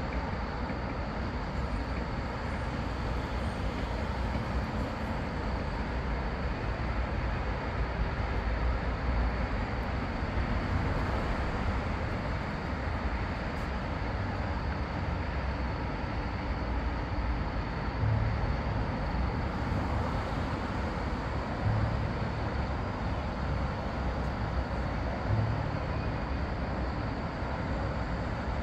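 Steady outdoor background noise with a low rumble and a few brief swells in the second half.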